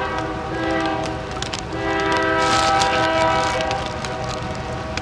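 Union Pacific diesel locomotive's air horn sounding from an approaching train: a long blast of several tones together that ends about a second and a half in, then a second, louder long blast. A low rumble runs underneath.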